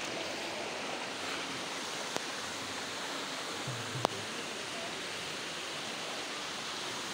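Stream water running over stones, a steady even rush. Two sharp clicks stand out, the louder one about four seconds in.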